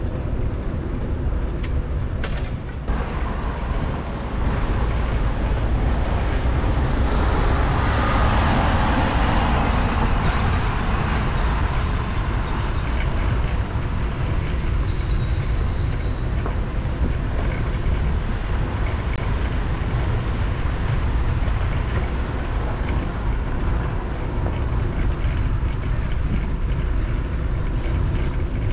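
City street traffic heard from a moving bicycle: a steady low rumble, with a passing vehicle swelling loudest about seven to ten seconds in.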